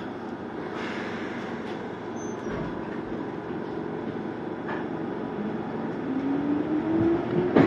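Izuhakone Railway 3000-series electric train pulling away, heard from inside the car: a steady running rumble, then a motor whine that rises in pitch as the train accelerates. A sharp clack comes near the end.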